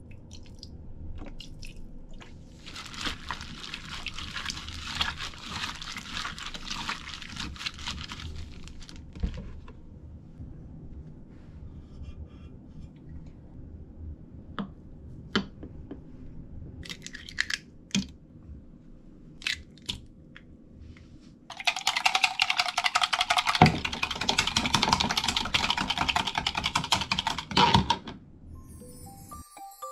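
Eggs whisked briskly in a plastic measuring cup: a fast, rattling scrape that runs for about six seconds near the end and is the loudest sound. Before it come other kitchen prep noises, a stretch of scraping and several separate knocks.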